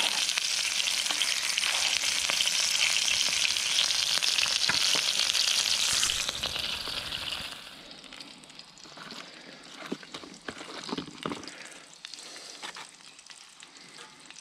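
Minced-meat kebabs sizzling in hot oil in a cast-iron pan, a loud steady frying hiss that stops abruptly about seven and a half seconds in. After that come quieter scattered rustles and light taps as lettuce leaves are handled and laid on the flatbreads.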